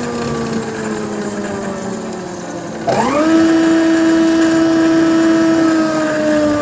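Three-phase thickness planer's electric motor coasting down with a slowly falling whine. About three seconds in it is switched on again and runs up to speed with a quick rising whine, holds steady, then begins to coast down again near the end. It now starts from its push-button switch, the sign that the repaired magnetic contactor works.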